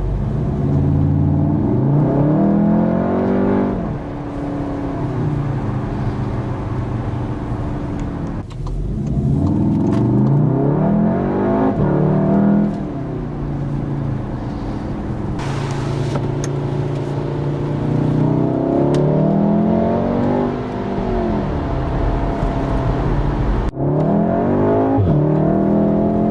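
VW Golf R Mk7's 2.0-litre turbocharged four-cylinder engine pulling hard under acceleration, its pitch climbing in long sweeps about four times. Between the pulls the engine runs at a steady pitch, and there is a brief drop shortly before the end.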